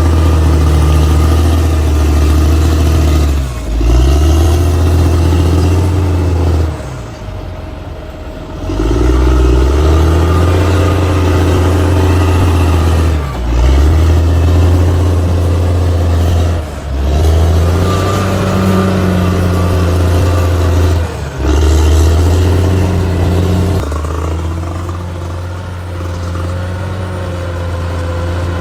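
Heavy earthmoving machine's diesel engine running steadily and loudly, with several sudden short drops in the sound that come back at once.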